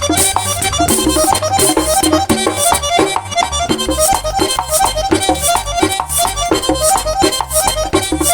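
Merengue típico instrumental passage: an accordion plays fast runs of short notes over a driving rhythm of bass and percussion.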